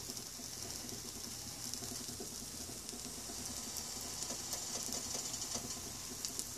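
Pancake batter frying in a skillet with a little coconut oil: a steady sizzle with light crackles, which grow busier after about four seconds.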